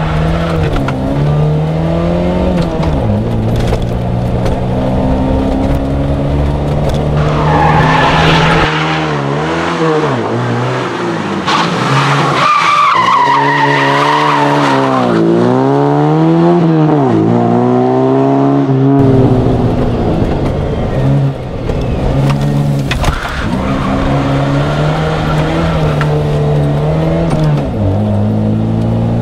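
Fiat 131 rally car's engine revving hard and dropping back through gear changes, with a deep rumble heard from inside the cabin. In the middle stretch, heard from the roadside, the engine revs rise and fall as the car slides sideways through a hairpin with its tyres squealing.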